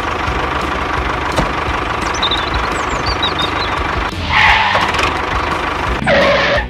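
A vehicle-like engine noise running steadily, with two louder surges about four and six seconds in.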